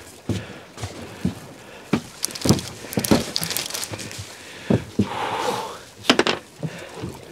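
Irregular knocks and clicks with rustling: handling noise of waterproof clothing and fishing gear against the boat, with a brief whoosh about five seconds in.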